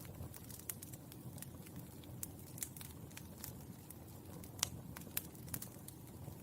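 Burning charcoal crackling: sharp, irregular pops and ticks over a low steady rumble, with the loudest pop about two-thirds of the way through.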